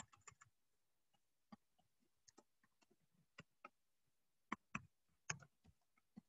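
Near silence broken by faint, irregular short clicks and taps, a few of them slightly louder just past halfway.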